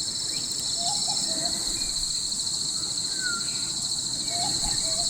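Steady, high-pitched chorus of insects such as crickets or cicadas, in two unbroken bands, over a low rush of a creek running high. A few short chirps, about a second in and again near the end.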